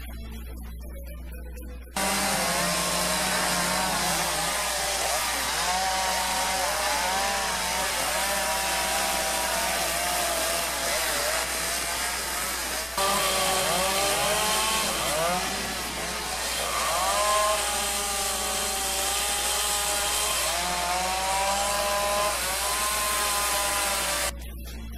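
Small two-stroke gas carving chainsaw cutting into wood, its engine pitch rising and falling as the throttle is worked. It cuts in suddenly after about two seconds of quieter background music and shifts abruptly about halfway through.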